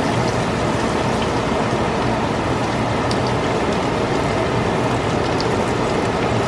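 Breaded chicken frying in vegetable oil in a skillet, sizzling steadily, with a few small crackles.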